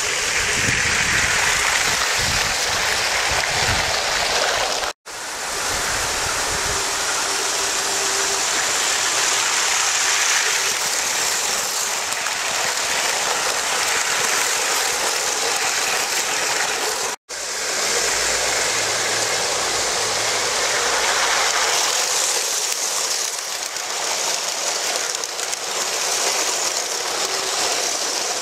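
Motorised LEGO trains running at speed on plastic LEGO track: a steady, even rushing clatter of wheels over the rails. It cuts out suddenly twice for a split second.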